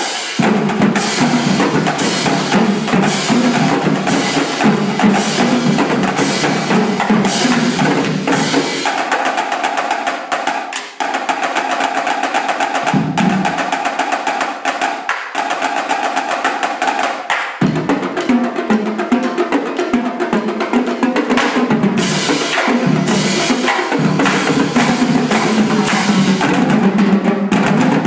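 Marching drumline of snare drums, tenor drums, bass drums and cymbals playing a fast drum cadence, with rapid snare strokes throughout. The low bass-drum notes drop out for about eight seconds in the middle, then come back in.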